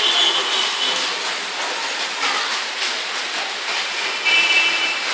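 Heavy rain falling steadily, a constant hiss of rain and running water. A short high chirp sounds near the start and again near the end.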